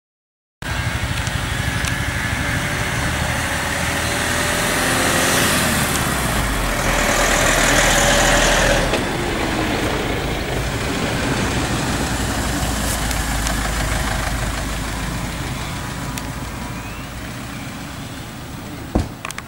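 Road traffic with engines running; one vehicle passes close, loudest a little before the middle, then fades away. A single sharp knock comes near the end.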